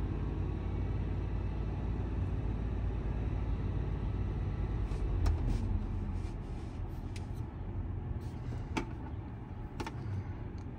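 2017 Chevy Tahoe's V8 idling, heard from inside the cabin as a steady low rumble, with the alternator charging at about 14.6 volts. A few light plastic clicks in the second half as the voltmeter and its wiring are handled.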